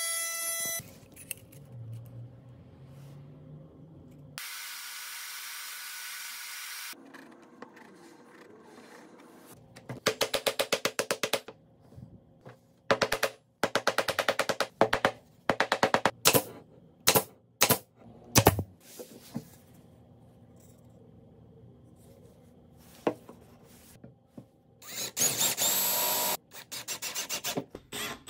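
Wooden mallet knocking small wooden blocks into slots in a hardwood board, in quick runs of sharp knocks with a few single knocks after. Near the end, a screw is driven by hand with a screwdriver into the wood, giving a short grinding, rasping stretch.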